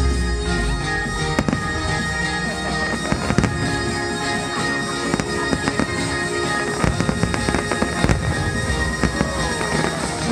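Aerial fireworks bursting in a rapid string of sharp bangs and crackles, over the loud music of the fireworks show.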